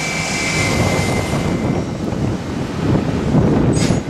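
Steady aircraft engine rumble with a high whine that fades out about two seconds in, and a brief hiss near the end.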